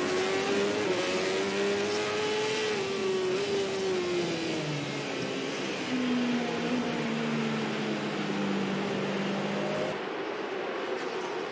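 Racing motorcycle engine at speed, heard from an onboard camera. Its note climbs slightly, falls away over a couple of seconds, then holds a lower steady pitch. About ten seconds in it gives way to duller trackside engine noise.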